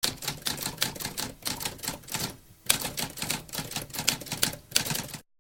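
Typewriter keys clacking in quick runs of strikes, with a short pause about halfway, then a second run that stops abruptly near the end.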